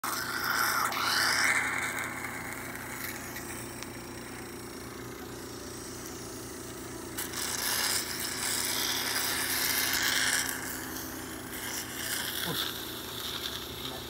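Veterinary dental equipment hissing in bursts while a dog's teeth are rinsed, loudest in the first two seconds and again from about seven to ten seconds, over a steady low machine hum.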